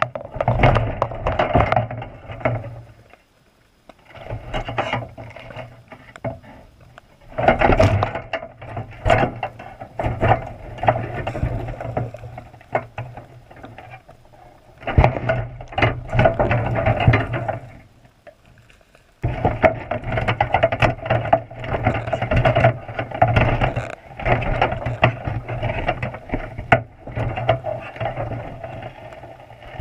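Underwater rattling and knocking of a wire box-style crab trap as a sea lion tugs at the salmon-head bait inside, in bursts of several seconds with short pauses between them.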